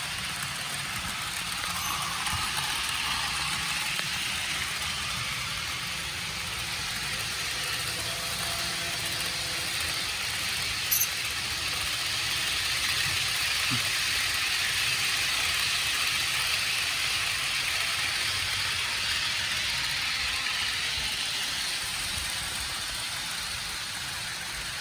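HO-scale model train running along the track: a steady whirring rumble of wheels and motor that grows louder towards the middle and fades near the end, with one sharp click about eleven seconds in.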